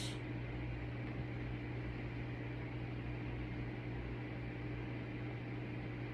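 Room tone: a steady low hum under an even background hiss, with no distinct events.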